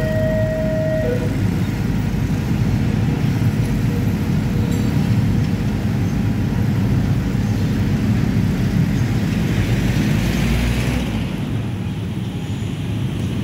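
The crossing's two-tone electronic warning alarm cuts off about a second in. After that comes a steady drone of many motorcycle engines and traffic as the waiting motorbikes ride across the tracks.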